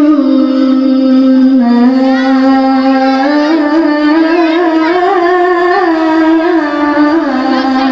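A boy's voice reciting the Quran in the melodic tilawah style into a microphone, one long unbroken ornamented phrase that climbs in pitch about three seconds in and falls back near the end.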